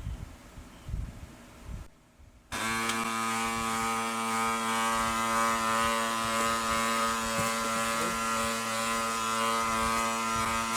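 Brother DCP-L2540DW laser printer running with a steady, buzzing gear noise from inside, starting about two and a half seconds in after a few faint knocks. It is typical of a gear inside that is jammed or not turning freely.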